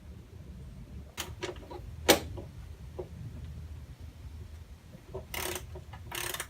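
Sharp clicks and knocks of hand tools on the car's underside, the loudest about two seconds in. Near the end come two short bursts of ratcheting, a ratchet wrench working the fasteners of the plastic underbody guard.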